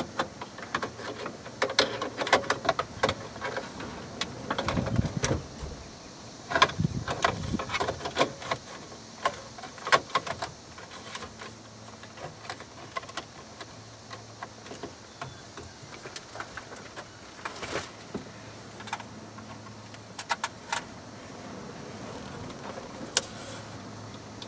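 Handling noise inside a pickup's dashboard radio opening: a string of clicks, rattles and plastic knocks as a wiring harness and its alarm beeper are pushed in behind the dash. Busiest in the first ten seconds or so, then sparser.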